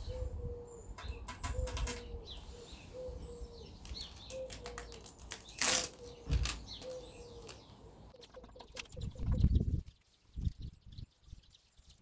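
A pigeon cooing in repeated phrases of short, low, slightly falling notes, with small birds chirping faintly above; the cooing stops near the end. Over it comes the crackle and rip of masking tape and newspaper being pulled away by hand, with a sharp tear about halfway and a louder rustle near the end.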